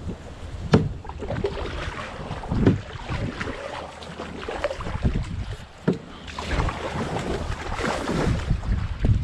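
Water lapping and splashing against a kayak hull, with wind buffeting the microphone and a few sharp knocks against the boat.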